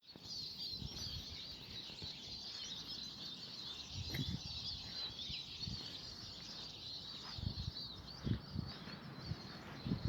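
Many small birds chirping and twittering together in a dense, continuous chorus, with occasional low wind buffets on the microphone.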